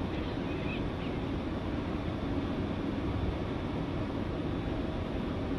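Steady low rumble of ship noise and wind on the deck of a container ship under way, with a faint bird call about half a second in.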